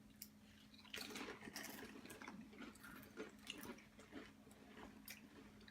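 Faint crunching of several people biting and chewing Pringles potato chips, a scatter of small irregular crackles starting about a second in.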